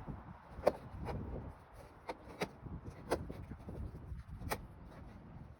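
Scattered sharp clicks and knocks, about four of them, as vinyl pergola column pieces are handled and fitted together, over a steady low rumble.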